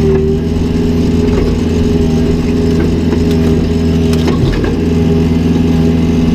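Mini excavator's diesel engine running steadily at work, with a few sharp knocks near the middle.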